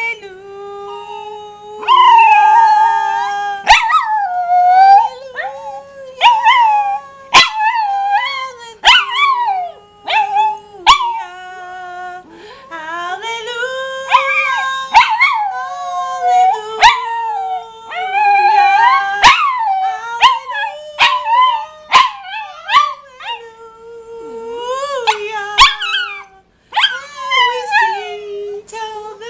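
Rat terrier howling along to a woman's singing: long, wavering, glidingly pitched howls broken by short pauses, with her voice holding lower, steadier notes beneath them.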